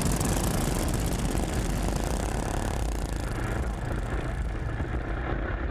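Racing ride-on lawnmowers' small petrol engines running at speed: a steady engine drone over rushing noise.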